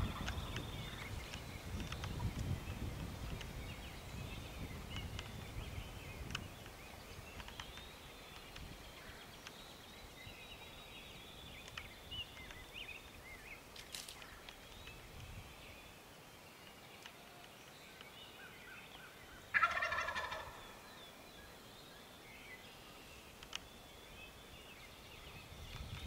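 A wild turkey gobbles once, a loud rattling call lasting about a second, near the end. Faint chirping of small birds runs underneath.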